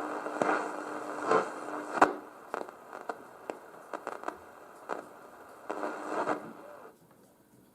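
Cat Radio RX801 receiver on AM giving narrow-band static hiss and crackle with scattered sharp clicks, as heard between stations. There is a steady whistle tone for the first two seconds, and the hiss drops away to near quiet about seven seconds in.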